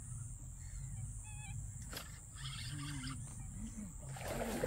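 Outdoor evening ambience: a steady high-pitched insect drone under a faint low hum, with a short wavy bird chirp about a second in. Louder noise builds near the end.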